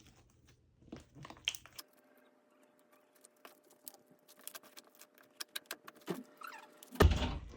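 Slime being worked by hand: a run of small sticky clicks and pops that grows denser from about three seconds in, then a louder handling noise near the end.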